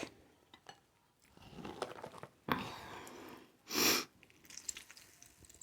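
Close-miked chewing and wet mouth sounds of a person eating seafood, with scattered small clicks and one short, loud rush of noise about two-thirds of the way through.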